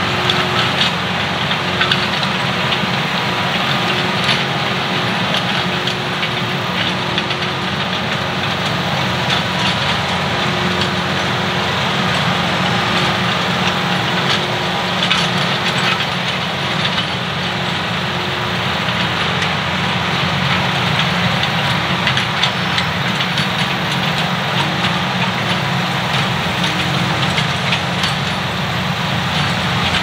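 John Deere 4066R compact tractor's diesel engine running steadily under load while it drives a 72-inch Rhino rear rototiller through soil: a constant engine hum under a dense, even churning noise, with scattered faint ticks.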